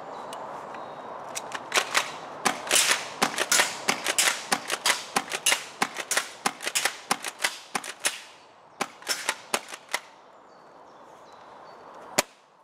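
CYMA CM352 airsoft pump-action triple-shot shotgun fired shot after shot for about eight seconds, a dense run of sharp clacks from the pump and shots, mixed with BBs rattling off corrugated metal sheeting. One last sharp click comes near the end.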